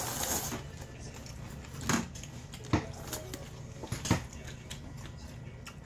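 A person slurping ramen noodles from a bowl: a short hissing slurp at the start, then three sharp clicks spaced roughly a second apart while eating.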